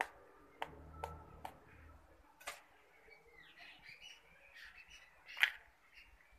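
A hen's egg tapped against the rim of a steel mixer jar, a few sharp taps in the first two and a half seconds, then small crackles as the cracked shell is pried open by hand, with a sharper crack about five and a half seconds in as the shell splits.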